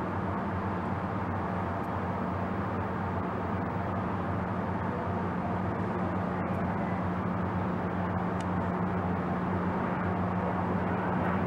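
Steady low machinery hum of a Coast Guard cutter under way, holding an even pitch, with a rushing noise over it.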